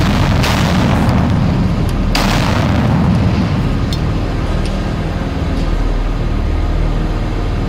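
Explosive charges detonating in a hard-rock test tunnel: two sharp blasts, about half a second and two seconds in, each followed by a deep rumbling echo that dies away by about three and a half seconds. Steady low background music underneath.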